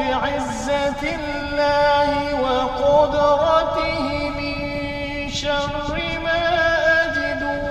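A man's voice chanting ruqyah recitation in a slow, melodic style, drawing out long held notes that glide from one pitch to the next.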